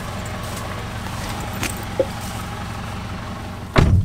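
Car idling with a steady low hum heard through the open driver's door, then a loud thump near the end as the car door is pulled shut, after which the hum is quieter.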